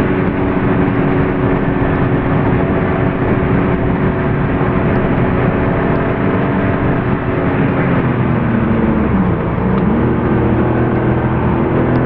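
Porsche 993 Carrera 4's air-cooled 3.6-litre flat-six heard from inside the cabin, pulling at steady revs. About eight seconds in the revs sink, then climb again.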